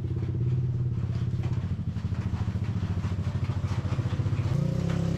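An engine running steadily with a fast, even pulse, its pitch stepping up about four and a half seconds in.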